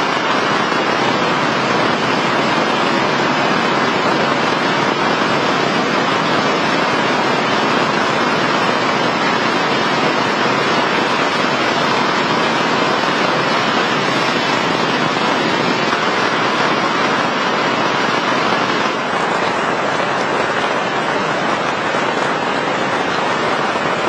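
Heavy rain falling steadily, a dense, even patter.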